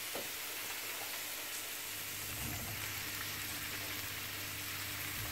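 Onions and curry powder frying in oil in a stainless steel pan, sizzling steadily under a heap of freshly added raw chayote cubes.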